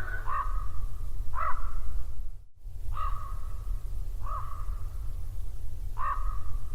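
Repeated short bird calls, five in a row spaced one to one and a half seconds apart, over a steady low rumble. The sound drops out for a moment about two and a half seconds in.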